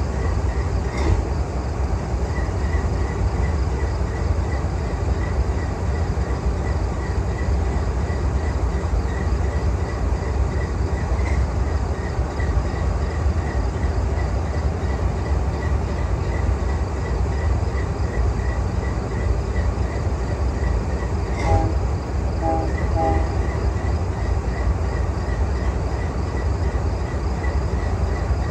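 CSX GE diesel locomotives rumbling steadily alongside, a deep heavy engine sound with a faint regular ticking over it. About three-quarters through, a train horn sounds three short blasts.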